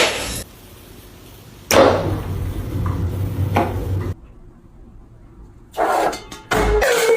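Several sharp knocks and clatters, with a heavy thump near the end.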